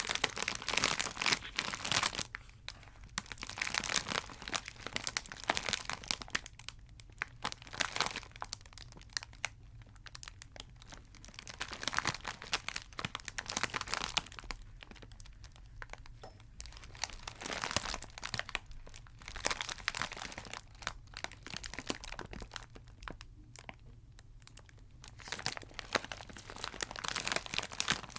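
Chocolate wrappers crinkling close to the microphone, in bursts of dense crackling separated by short quieter pauses.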